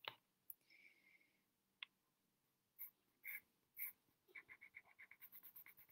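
Faint scratching of a dark grey coloured pencil on paper, starting about four seconds in as quick, even back-and-forth shading strokes, about nine a second. Before that, a few faint scattered taps.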